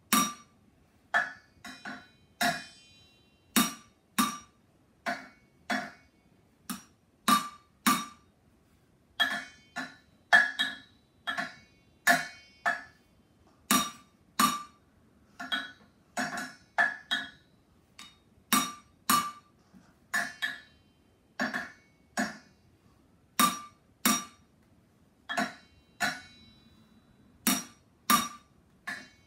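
Wooden drumsticks beating on an upturned cooking pot and a metal pot lid, a steady beat of about one to two hits a second, each hit ringing briefly with a metallic clank.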